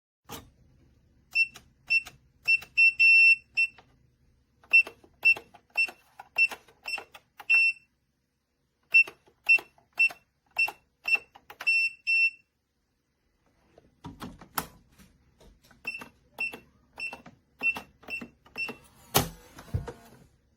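Push-button keypad of an ONNAIS biometric pistol safe beeping as codes are punched in. There are four runs of short, high-pitched beeps, one per key press, at about two to three a second, with pauses between the runs. A sharp clunk sounds near the end.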